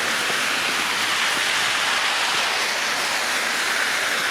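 Steady rushing hiss of road traffic, tyres on a wet, slushy road.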